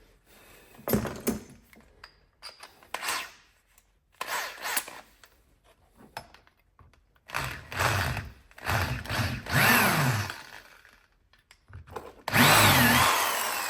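Handheld power drill run in short bursts while drilling out a broken accelerator pump plunger stuck in a carburetor bore. The last and loudest run winds down with a falling whine.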